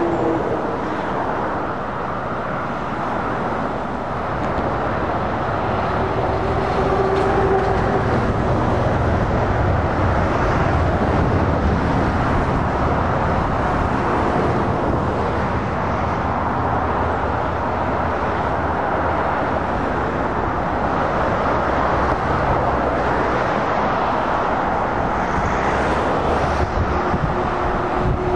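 Steady road traffic: lorry and car engines and tyre noise on tarmac as vehicles pass along the road.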